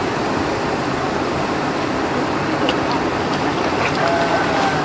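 Steady rushing of a shallow river flowing over rocks, with faint voices near the end.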